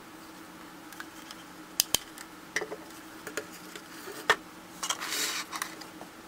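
Hard plastic camping lantern handled on a wooden table: a few sharp clicks and knocks about two and four seconds in, then a brief rustle, over a faint steady hum.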